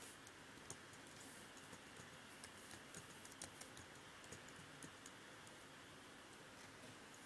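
Faint, irregular clicks of typing on a computer keyboard, over a low steady hiss.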